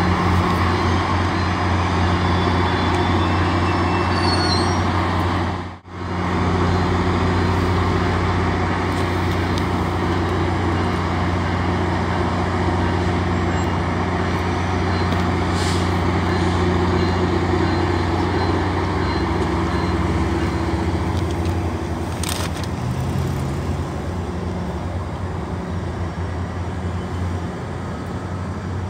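Heavy diesel engine idling with a low, even hum. The sound drops out for an instant about six seconds in.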